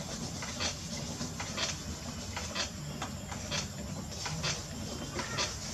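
Wet clay rubbing under a potter's hands as the jar's neck turns on a potter's wheel, giving soft swishes one to two a second over the wheel's steady low hum.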